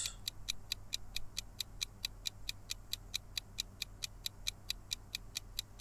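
Quiz countdown-timer sound effect: a steady, even ticking at about five ticks a second while the answer time runs down.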